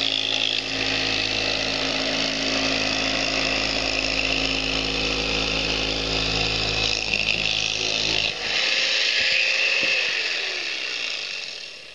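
A motor running steadily with a low hum, cutting off a little after eight seconds in, followed by a falling whine as something winds down.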